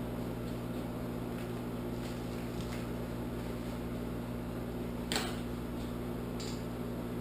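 Microwave oven running with a steady hum while cooking bacon, with one brief click about five seconds in.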